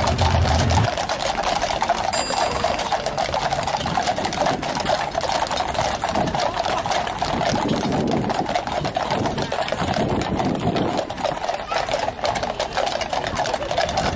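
Dense, continuous clatter of many shod horses' hooves on a tarmac road as a column of mounted cavalry walks past.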